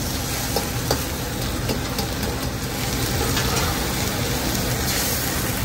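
Gas wok burner running steadily with a low rumble under a wok of bok choy and yong tau foo sizzling and bubbling in a little broth. A few faint clicks come through in the first two seconds.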